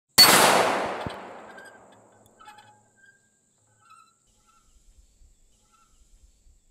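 A single rifle shot from an AR-style rifle fitted with a muzzle brake, its echo dying away over about two seconds.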